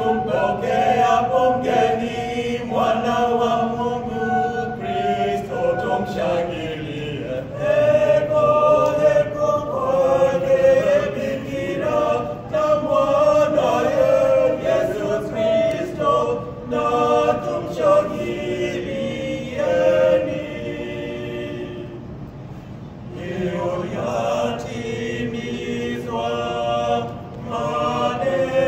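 Small mixed choir of five voices, men and a young woman, singing a Swahili Christmas song a cappella in parts, with long held notes. The singing softens for a moment about three-quarters of the way through, then swells again.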